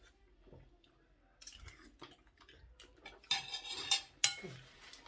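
Spoon scraping and clinking against a bowl of pepper soup as it is eaten, with a longer scrape and then one sharp clink about four seconds in.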